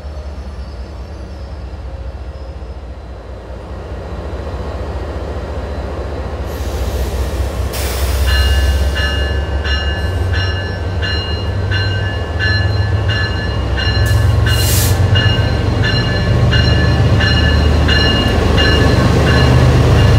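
MBTA commuter train led by HSP46 diesel locomotive 2033 pulling into the station. The engine's rumble grows louder as the locomotive draws near and passes close. From about eight seconds in, its bell rings steadily, about once every three-quarters of a second, and there are two brief bursts of hiss.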